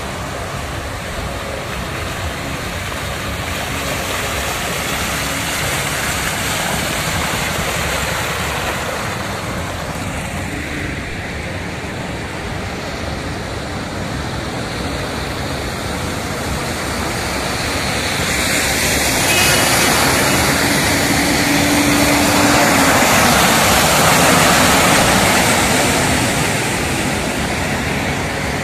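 Motor vehicles driving through a flooded street, tyres splashing and churning the floodwater in a steady rushing noise that grows louder past the middle.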